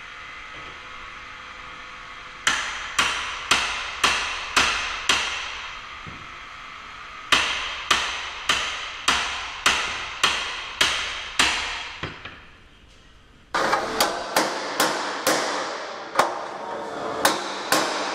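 Club hammer striking a steel pry bar wedged at the lock edge of a steel security door, in a leverage attack meant to force the bolt out of its keep. The blows come in runs of about two a second, each with a metallic ring, and after a short pause a further run of strikes sits over a louder steady noise.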